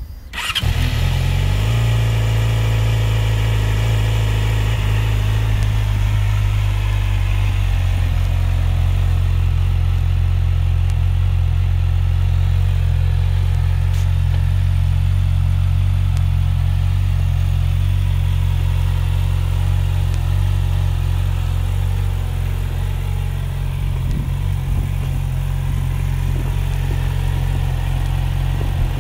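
2016 Yamaha YZF-R6's 599cc inline-four engine starting just after the beginning, catching at once, then idling steadily.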